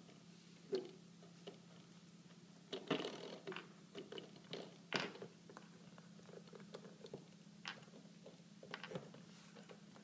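Puppy chewing and biting on a spring door stopper: scattered clicks and short scrapes of teeth on the coiled metal spring, with a cluster about three seconds in and a sharp click about five seconds in.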